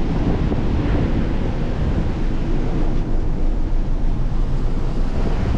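Wind blowing hard across the microphone on a ship's open deck at sea: a loud, steady low noise that keeps swelling and dipping.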